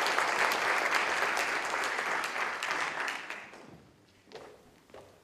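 Audience applauding, the clapping dying away about three and a half seconds in, followed by a couple of faint knocks.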